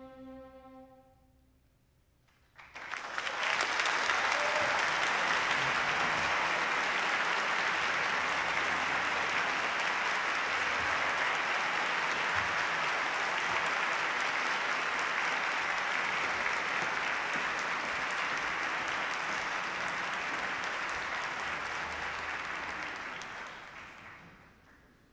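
The last held note of the music fades out, and about two seconds later an audience starts applauding, steady and loud, until the clapping dies away near the end.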